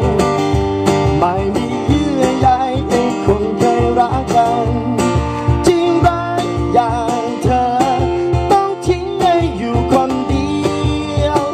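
Live acoustic music: a man singing to a strummed acoustic guitar, with a cajón and hand percussion keeping a steady beat.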